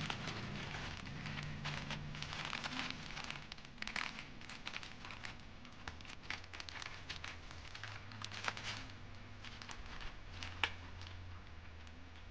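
Plastic packaging bags crinkling and rustling as they are handled and opened, in irregular handfuls with a few sharper crackles, the sharpest near the end, over a faint low hum.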